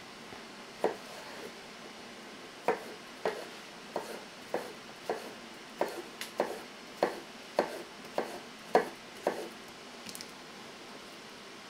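Kitchen knife cutting vegetables on a cutting board: about fourteen sharp strokes at roughly two a second, stopping near the end.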